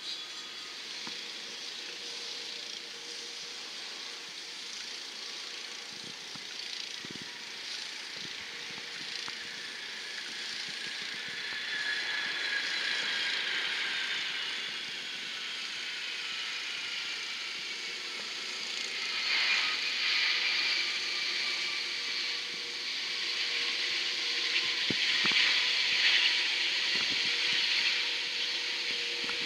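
Jet engines at low power: a steady whine over a rushing hiss. From about twelve seconds in, several whining tones slide slowly down in pitch as a FedEx Boeing 757 freighter rolls along the runway.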